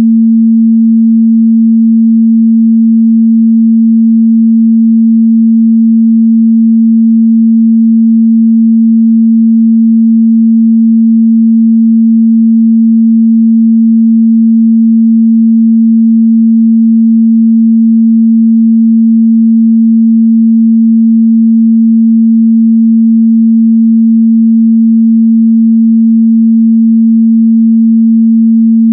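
A steady, loud 226 Hz sine-wave test tone, a single pure low hum held constant without any change.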